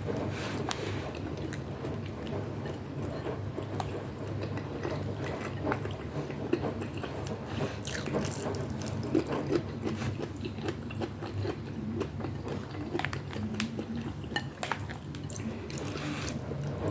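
Close-up eating sounds: chewing and biting, with scattered sharp clicks of a utensil against a dish, over a steady low hum.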